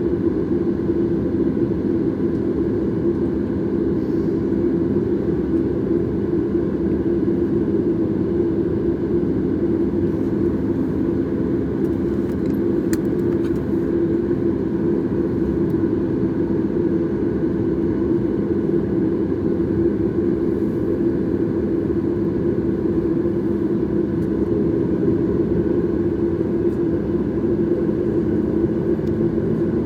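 Steady cabin drone of a Boeing 737 MAX, its CFM LEAP-1B engines running evenly, with a low hum.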